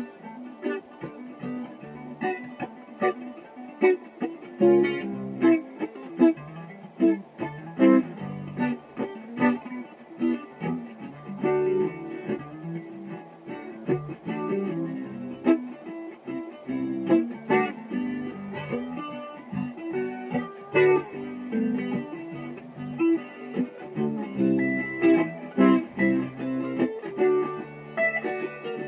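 Electric guitar played solo, a continuous run of picked notes and chords with no other instruments.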